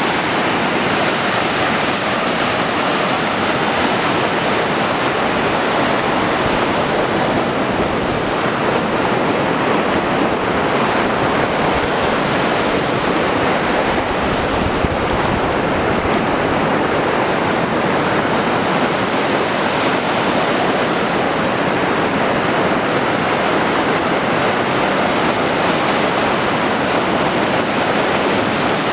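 Baltic Sea surf washing on the shore, a steady loud rush with no distinct breaks between waves.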